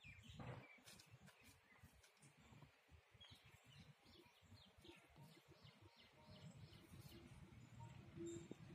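Near silence with faint, quick bird chirps repeating for a few seconds in the middle, over a low background rumble.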